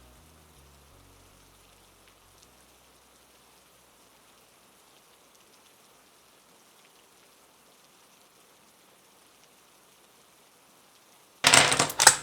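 Faint steady rain hiss, with the tail of background music fading out at the start. Near the end, a sudden loud rattle and clatter of dice being shaken and rolled for a game.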